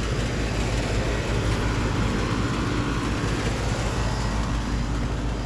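Commercial packaged air conditioning units running: a steady whoosh of condenser fans over a low compressor hum.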